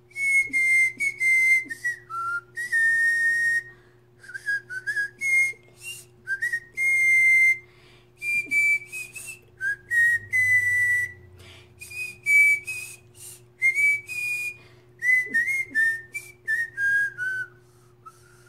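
A woman tooth whistling a melody, a clear high whistle moving from note to note in short and held notes, phrased with brief pauses.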